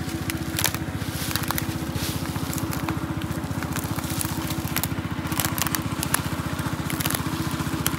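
An engine runs steadily with a fast, even pulse, while dry leaves and twigs crackle and snap in scattered clicks as people tread and rummage through a pile of dry brush.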